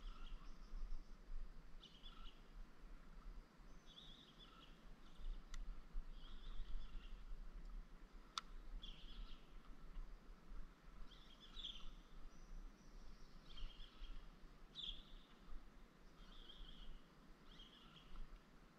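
A bird calling faintly with short chirps, about one a second, over a low steady rumble. Two sharp clicks come a few seconds apart near the middle.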